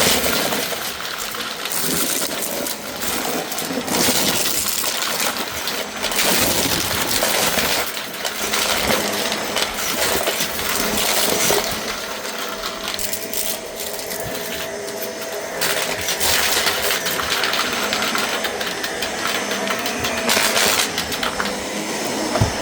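Shark vacuum cleaner running over a rug and sucking up a debris mix, the debris clattering up through the wand over the steady whine of the motor.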